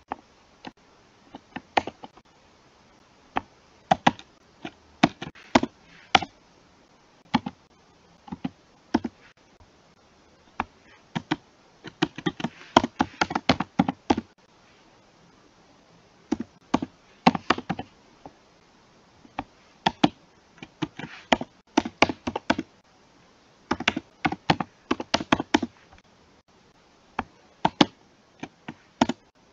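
Computer keyboard typing: flurries of sharp keystrokes with short pauses between them, busiest from about 12 to 14 seconds in and again near the end.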